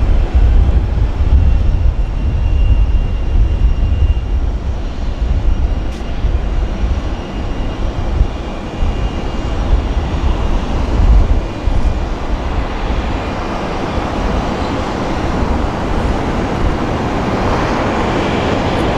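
Jet airliner engines: a loud, continuous deep rumble with a faint high whine, the rumble heaviest in the first half and giving way to a steadier hiss towards the end.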